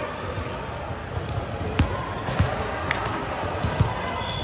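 A basketball bouncing on the court during play: a few irregular thumps in the second half, over steady hall noise. A brief high squeak near the start.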